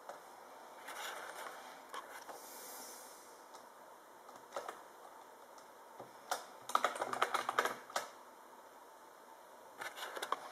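Laptop keyboard keys clicking: a few scattered keystrokes, then a quick, loud run of typing about six seconds in, and a few more clicks near the end.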